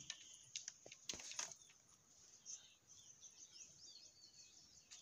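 Faint bird chirps, with a few soft knocks or rustles just after a second in.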